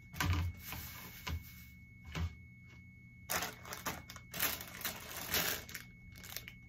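A plastic basket is set down on a table with a few knocks, then crinkling and rustling of plastic candy wrappers and paper basket grass as the basket is filled.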